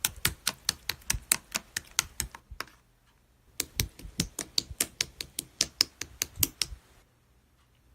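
Rapid sharp clicks or taps, about five or six a second, in two runs broken by a pause of about a second near the middle. They stop shortly before the end.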